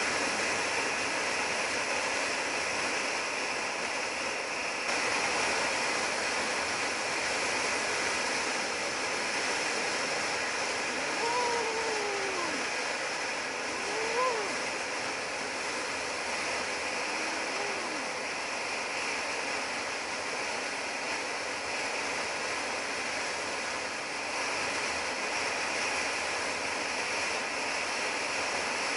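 Steady wind rush over the microphone of a motorcycle riding at highway speed, with the engine lost under it. A few brief pitched glides sound around the middle.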